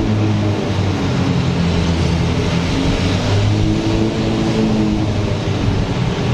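Car engine running at low revs as an open-top convertible drives slowly, its note shifting a little, with a steady rush of air and road noise.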